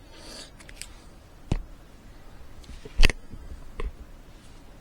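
Three short, sharp plastic clicks and taps from handling the small parts of a car remote key fob, the loudest about three seconds in, with a soft rustle at the start.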